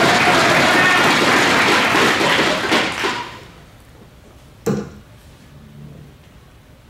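Crowd cheering and shouting that dies away about three seconds in. About a second and a half later comes a single sharp thud: a dart striking a bristle dartboard.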